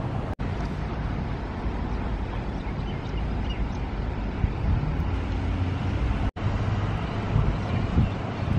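Wind buffeting the microphone over outdoor street ambience, a steady low noise that cuts out for an instant twice.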